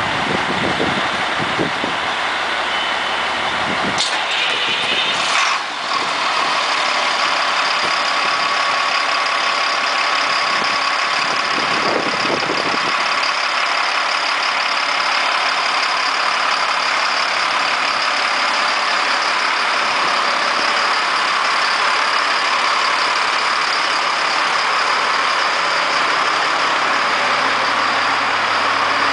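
American LaFrance Metropolitan fire engine's diesel engine idling steadily, with a steady high whine over it from about six seconds in. There are two short clicks about four and five seconds in.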